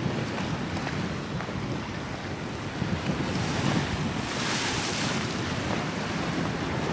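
Sea waves washing against the shore, with wind buffeting the microphone; a wave surges in with a louder hiss about four seconds in.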